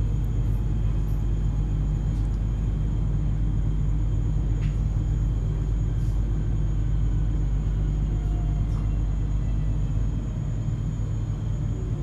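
Interior of an ES2G Lastochka electric train rolling slowly along a station platform: a steady low rumble from the running gear. It eases off about ten seconds in, with a faint falling whine as the train slows almost to a stop.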